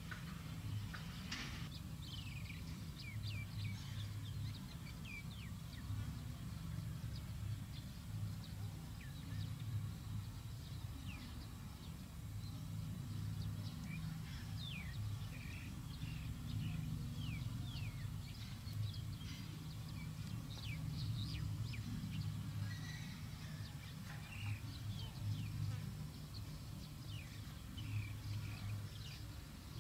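Two dogs play-fighting, with low growling that comes and goes in short spells. Short high falling chirps sound throughout.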